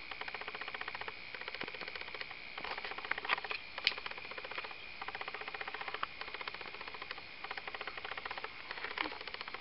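Rapid, evenly pulsed animal calling, about ten pulses a second, in runs of one to two seconds with short breaks, over a faint steady high whine, with a few sharper notes standing out. The recordist takes it for a male spotted crake but wants it confirmed.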